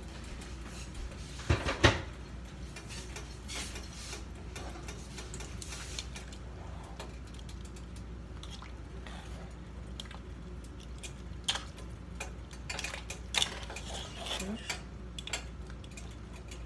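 Metal cooking pot and utensils clattering and clinking on a stovetop, a loud cluster of knocks about two seconds in, then scattered lighter clinks, over a steady low hum.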